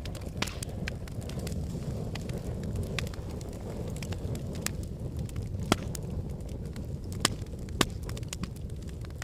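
Wood fire burning in a fireplace: a steady low rumble of the flames with constant small crackles, and a few louder pops near the middle and toward the end.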